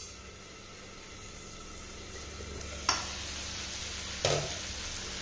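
Cubed potato, pumpkin, papaya and carrot sizzling steadily as they fry in mustard oil in a kadai. Two sharp knocks come about three and about four seconds in.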